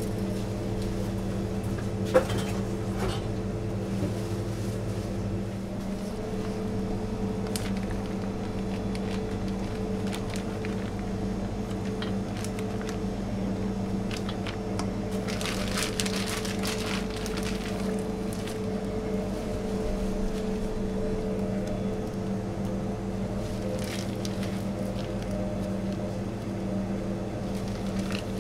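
Steady machine hum of bakery kitchen equipment, a low drone with a few held tones. A light knock comes about two seconds in, and a brief rustle comes around the middle as whipped cream is scraped into a plastic piping bag.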